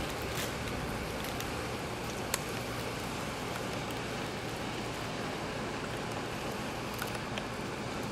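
Steady rushing noise of wind and river water, with no distinct engine sound, and a faint click a little over two seconds in.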